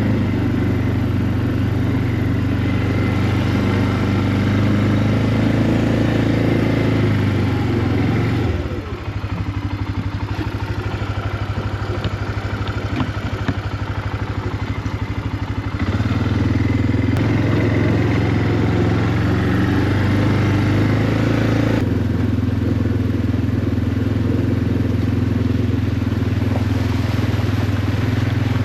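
Vehicle engine running steadily while driving. About eight seconds in it eases off to a lower, lighter running with a few faint clatters, then picks back up at about sixteen seconds and runs steadily to the end.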